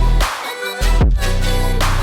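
Electronic background music with a heavy bass beat, dropping out briefly about half a second in.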